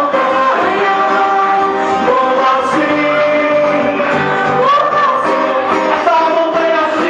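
Live gospel music: women singing a melody into microphones over a full band, amplified through a PA system.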